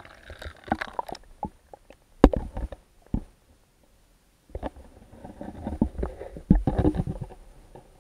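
Muffled water sloshing and rumbling with irregular knocks, heard through an action camera's waterproof housing as it goes under the lake surface. A sharp knock a little over two seconds in, a brief lull near the middle, then a denser stretch of low rumbling and knocking.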